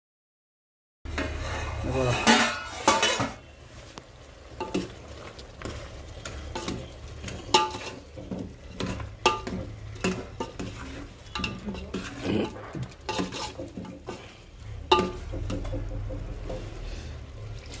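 Metal ladle scraping and clinking against a large metal cooking pot as chicken pieces are stirred, starting about a second in, with frying sizzle and a low steady rumble underneath.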